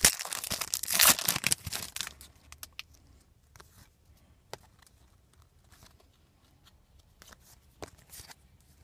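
A trading card pack wrapper being torn open and crinkled, loud for about the first two seconds. After that come only scattered soft clicks as the cards are handled and flipped.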